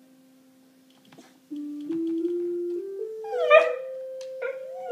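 Electric keyboard holding a low note, then climbing note by note in five steps to a sustained higher note. A beagle mix gives a short howl over it about three and a half seconds in and starts a second, longer howl near the end.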